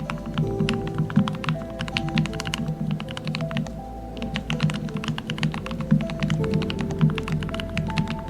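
Typing on a modded Royal Kludge RK68 mechanical keyboard: a quick run of deep, thocky keystrokes, several a second, with a short lull about four seconds in. Soft background music plays underneath.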